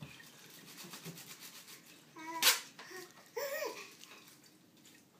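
Plastic air-pillow packing crinkling as it is torn open, with one sharp tearing pop about two and a half seconds in, the loudest sound here. A baby giggles just before the pop and laughs again about a second later.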